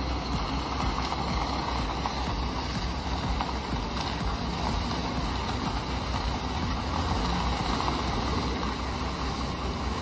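Diesel engine of a heavy tractor truck running steadily at crawling speed, pulling a lowboy trailer loaded with a D10 bulldozer: a low, even rumble with a hiss over it.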